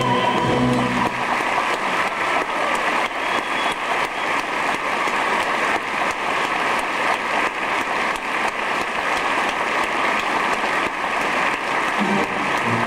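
Theatre audience applauding: dense, steady clapping. The last sung chord of the number dies away about a second in, and the orchestra starts up again near the end.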